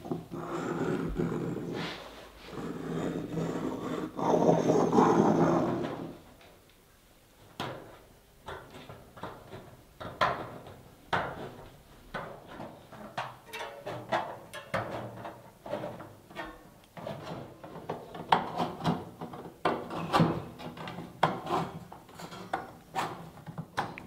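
Thin sheet metal being scribed with the point of a wooden beam compass, a long grating scrape with a buzzing tone in three strokes over about six seconds. Then aviation snips cut along the scribed line, a run of sharp crunching snips, about one or two a second.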